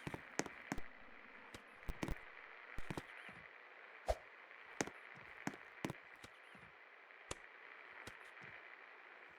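1992 National NT48 ceiling fan running with a steady faint whir, and a dozen or so sharp clicks and knocks at irregular moments.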